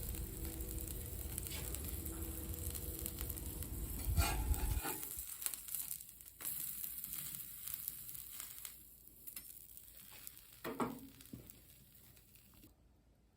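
A quesadilla sizzling on a hot griddle over charcoal, louder for a moment about four seconds in. The sizzle then dies down, with one brief knock near the end before the sound cuts off.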